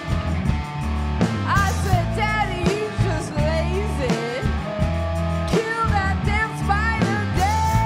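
Live rock band: a woman's lead vocal sung over electric guitar, electric bass and drum kit. Near the end she holds one long note.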